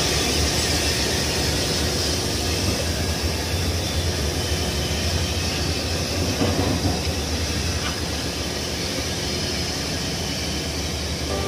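Steam locomotive No. 85 Merlin, a GNR(I) V class 4-4-0, moving slowly along a station platform with a steady hiss of steam. The sound fades slightly as it draws away.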